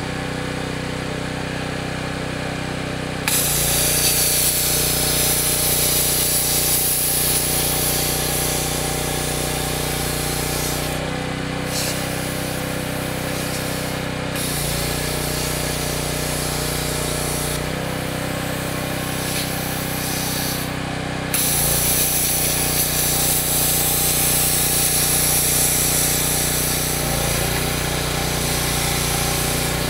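The steel shell of a sealed AC compressor being power-cut: a loud, hissy cutting noise starts about three seconds in, breaks off briefly a few times and starts again sharply near the middle. An engine hums steadily underneath.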